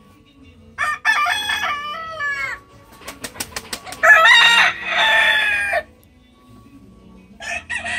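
Gamefowl roosters crowing: one crow about a second in, then a louder crow about four seconds in, with a quick run of sharp clicks between them. Another crow starts near the end.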